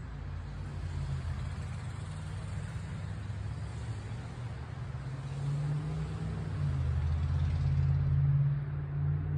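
A motor vehicle engine running: a low hum that grows louder about seven to eight seconds in, under a steady hiss that cuts off near the end.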